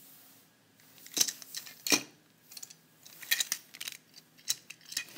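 Hard plastic clicks and rattles from a Mega Bloks toy engine and tender being handled: two sharp clicks about a second apart, then a run of lighter clicks.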